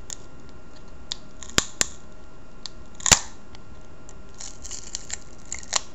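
Sharp little clicks and ticks as an iPhone battery is peeled off its adhesive by its pull tab: two clicks about one and a half seconds in, the loudest about three seconds in, and a run of small ticks near the end.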